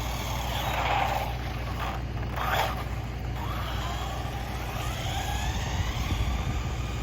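Electric whine of a 1/16-scale brushless RC car's motor, sliding up and down in pitch with the throttle, with two short rushes of noise about one and two and a half seconds in, over a steady low rumble.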